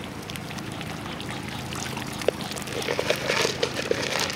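Young Muscovy ducks dabbling and pecking sunflower seeds out of shallow water and wet sand, with wet splashy slurping and sharp pecking clicks that grow busier about halfway through.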